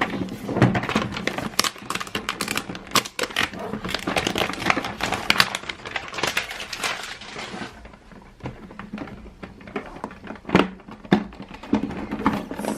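Toy packaging crinkling and crackling as it is torn open by hand, a dense run of crackles that thins out to scattered clicks and handling knocks after about seven seconds.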